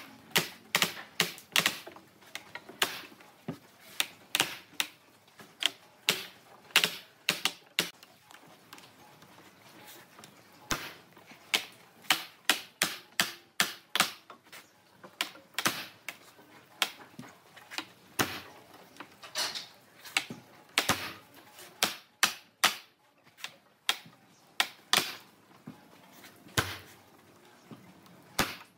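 Steel pipe clamps being set and tightened: a long, irregular run of sharp metallic clicks, a few a second, with short pauses.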